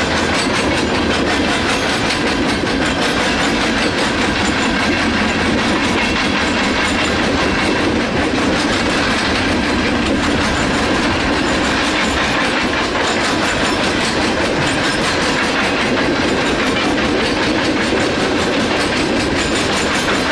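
Freight train of tank cars and covered hopper cars rolling steadily past, with the continuous rumble and clatter of steel wheels on the rails.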